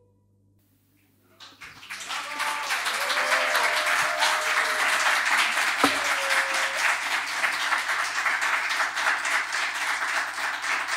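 Audience applauding, starting after about a second and a half of silence at the end of a song.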